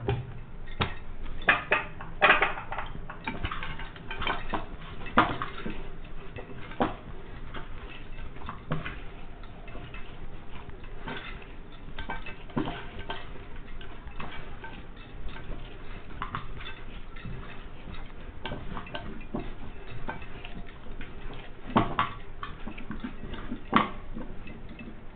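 Irregular light clinks and knocks as cooked semolina dough is kneaded by hand in a non-stick frying pan, the wrist's glass bangles and the pan clicking with each push.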